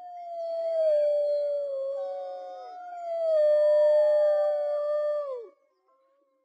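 Several wolves howling together: long overlapping howls that glide slowly down in pitch, new voices joining higher about two and three seconds in. The chorus ends with a falling slide about five and a half seconds in.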